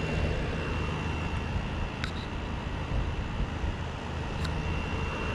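Kool King window air conditioner running steadily on its first startup of the season: a steady hum from the compressor and fan with a thin high whine over it. A couple of faint clicks partway through.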